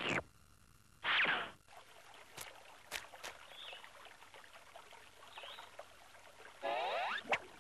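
Cartoon soundtrack: a trickling stream runs through, broken by short pitched cartoon noises, a sliding swoop about a second in and another near the end, with a few light clicks between. A brief sharp sting opens it.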